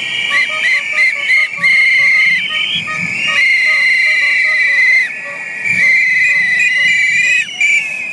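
Several pea whistles blown by a protest crowd as a noise protest: long trilling blasts of about a second each, broken by short toots, with more than one whistle sounding at once.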